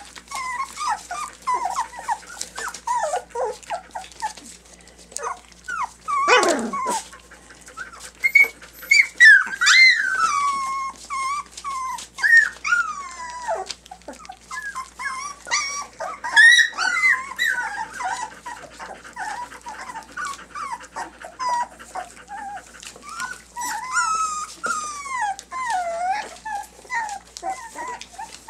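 A litter of three-week-old puppies whining and squealing almost without pause, many short high cries rising and falling in pitch, with a louder cry sliding down in pitch about six seconds in. The puppies are upset.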